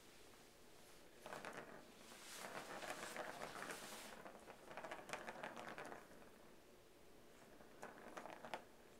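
A cat's claws scratching at a corrugated cardboard scratch pad, in rough scraping bursts: a long stretch from about a second in until about six seconds, then a shorter one near the end.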